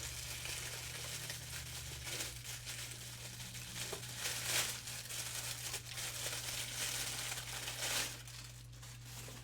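Packaging crinkling and rustling as it is handled and pulled away, with several louder crinkles in among the steady rustle.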